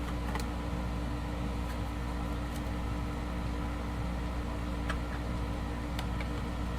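A steady low machine hum, with a few faint light clicks from handling small parts.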